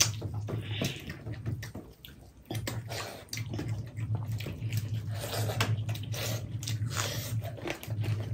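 Wet squelching and clicking of hands mashing rice and chicken curry on steel plates, with chewing. A low steady hum runs underneath and breaks off briefly about two seconds in.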